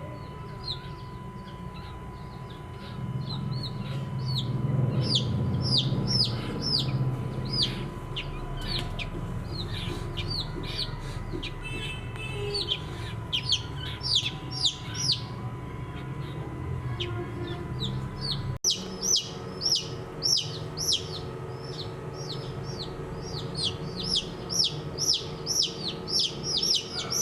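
A group of baby chicks peeping: many short, high calls, each falling steeply in pitch, several a second. After a sudden break about two-thirds through, the peeps come thicker and louder.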